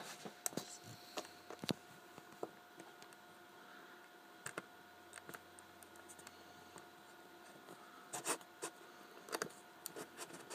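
Faint, scattered small clicks and taps of a screwdriver working the plastic casing of an LG GD510 mobile phone during disassembly, with a faint steady hum behind.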